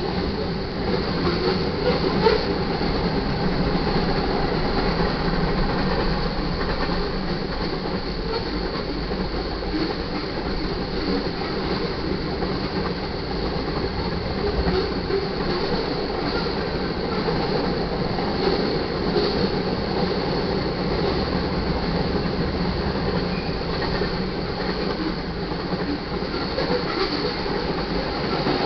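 Manifest freight train rolling past: a steady rumble of steel wheels on rail, with occasional faint clicks.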